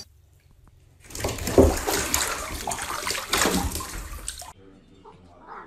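Bathtub water splashing and sloshing as a cat plunges in and scrambles back out. It starts suddenly about a second in and stops abruptly about three and a half seconds later.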